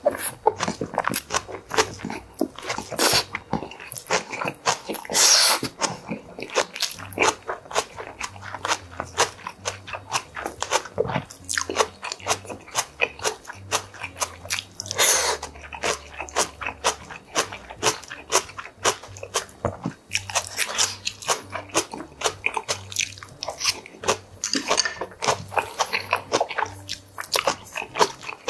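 Close-miked chewing of fresh kimchi and boiled pork: dense, rapid crunching with wet mouth sounds, and a few louder bursts.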